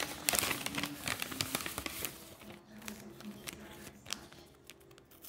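A small handmade paper packet crinkling and rustling as it is handled and pulled open by hand, densest in the first two seconds, then sparser crackles.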